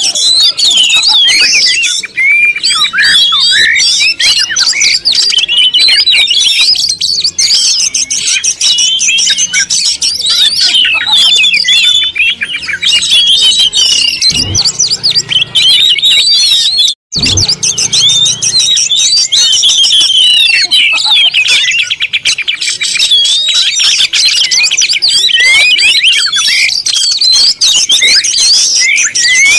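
Many birds chirping and calling at once in a dense, unbroken chorus of high, quick chirps, with a momentary break about seventeen seconds in.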